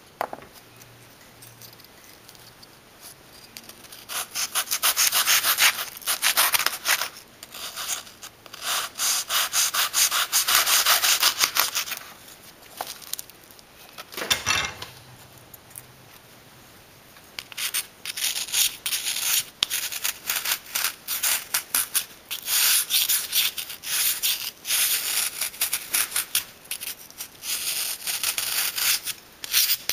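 A metal blade sawing and scraping a cuttlefish bone, a dry rasping in quick repeated strokes as the soft bone crumbles away, shaping it for a casting mould. A single dull knock about halfway through.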